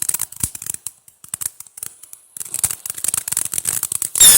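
Bottle-rocket fireworks crackling with rapid sharp pops. Near the end comes a loud burst with a falling whistle.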